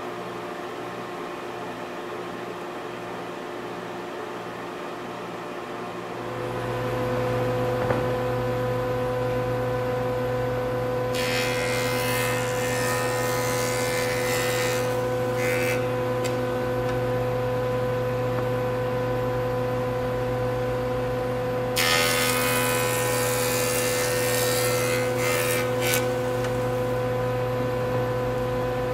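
A benchtop jointer motor starts about six seconds in and runs with a steady hum. A black walnut board is then fed on edge over the cutterhead twice, each pass a few seconds of loud cutting noise.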